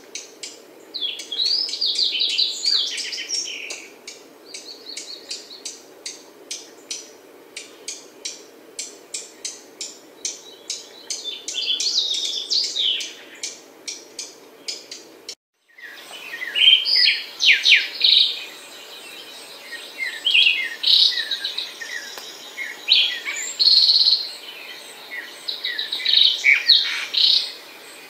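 Fox sparrow singing: repeated phrases of whistled notes and short trills. Through the first half the phrases come over a steady run of sharp ticks about three a second. After a brief break about halfway, a second recording has louder, closer-spaced phrases.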